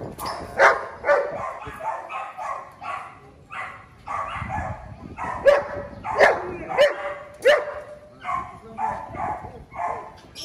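A dog barking over and over in short excited barks, about two a second, some of them rising in pitch.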